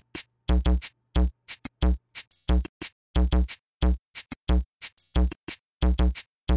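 Background music: electronic music with a steady, punchy drum-machine beat.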